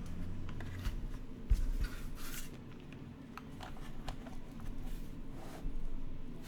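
Typing on a Matrix 8XV 3.0 mechanical keyboard with lubed and filmed Gateron Cap V2 Yellow linear switches in a top-mounted carbon-fibre plate and GMK keycaps: irregular keystroke clacks, with a low thump about a second and a half in.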